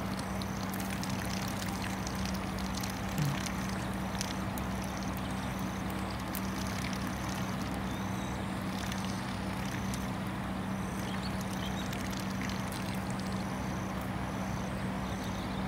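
Steady low hum over an even wash of noise, with a faint high chirp repeating about once a second for stretches and a single short low bump about three seconds in.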